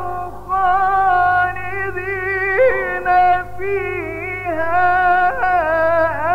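Male Quran reciter chanting in the mujawwad style, drawing out long ornamented notes with a quick vibrato in a few phrases separated by short breaths. A low steady hum runs underneath.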